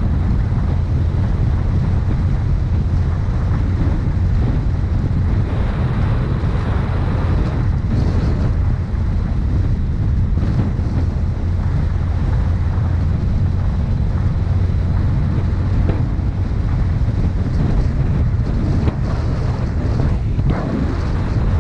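Wind buffeting the microphone: a loud, steady low rumble without a break.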